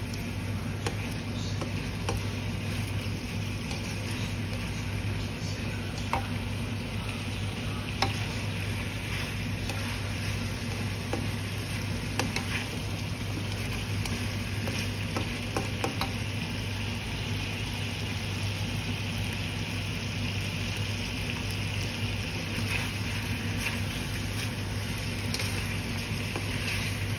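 Chicken wings and mushrooms sizzling as they fry in a nonstick pan, stirred and turned with a slotted plastic spatula that scrapes and taps against the pan now and then. A steady low hum runs underneath.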